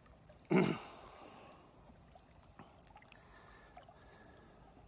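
A single loud splash of water about half a second in, trailing off over about a second, over faint steady background noise.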